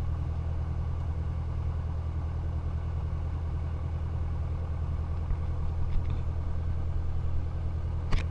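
Single-engine Socata TB-9 Tampico's four-cylinder Lycoming piston engine idling with a steady low drone, heard from inside the cockpit during the rollout after landing. A sharp click near the end.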